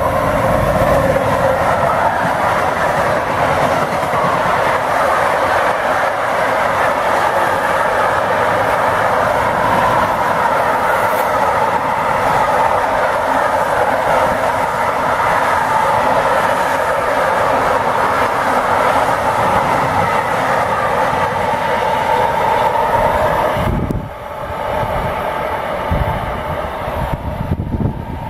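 Electric-hauled container freight train passing close by: steady loud rolling noise of the wagon wheels on the rails, which drops away sharply about four-fifths of the way through as the last wagon goes past.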